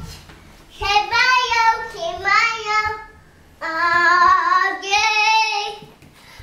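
A young child singing four short, high-pitched phrases of about a second each, with brief pauses between them.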